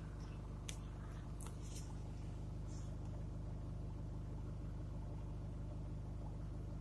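Car engine idling steadily, heard from inside the cabin, with a few short clicks in the first three seconds.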